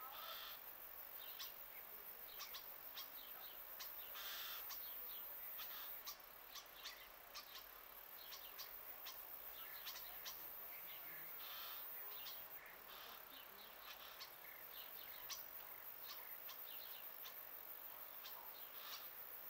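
Faint chirping of small birds, many short chirps a second, over a steady high hiss.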